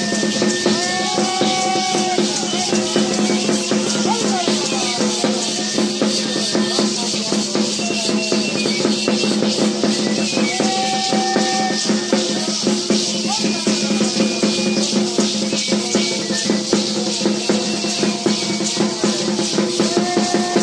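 Parachico dance music: gourd rattles (chinchines) shaken in a fast, dense rhythm, with short held notes from a cane flute and a drum beneath.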